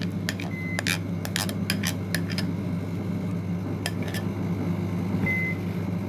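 A spatula scraping and tapping cake batter out of a mixing bowl into a metal cake tin: a run of light clicks and knocks, mostly in the first half and twice more near the end. Under it a steady low hum, the convection microwave oven running as it preheats.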